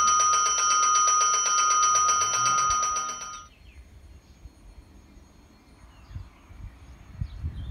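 Electric trembler bell on the station's wall panel ringing continuously with a fast rattle, then cutting off suddenly about three and a half seconds in. In an Italian station this is the approach bell warning that a train is coming. Faint bird chirps follow, and a low rumble builds near the end.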